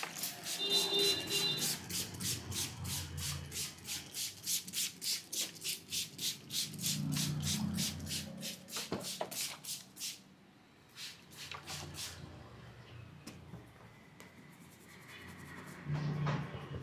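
A barber's hands rubbing and stroking in quick, even strokes during a massage, about four strokes a second. After about ten seconds the strokes become sparser.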